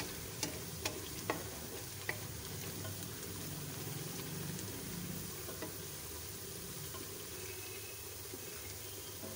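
Sliced onions frying in oil in a metal pan over low heat, a steady sizzle, while a spatula stirs them. There are a few sharp taps of the spatula against the pan in the first two seconds.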